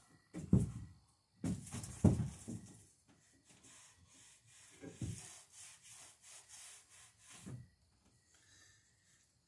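Wood being handled and rubbed: several dull knocks in the first few seconds, then a stretch of soft rubbing strokes, with another knock about five seconds in and one more before it goes quiet.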